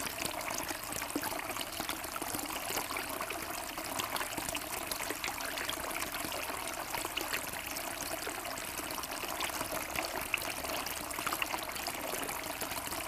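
Kelkay Harlow two-tier garden fountain running: thin streams of water fall from the rims of its bowls into the basins below, giving a steady trickling and splashing.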